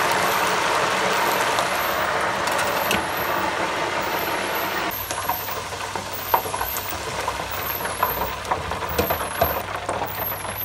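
Potato fries deep-frying in hot oil: a loud, steady sizzle of bubbling oil that eases somewhat about halfway through, then continues with many small crackles and pops.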